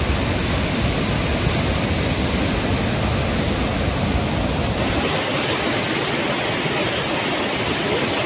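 Flash-flood water rushing over a weir, a steady dense rush with a deep rumble. About five seconds in it switches to floodwater surging past a house, with less of the low rumble.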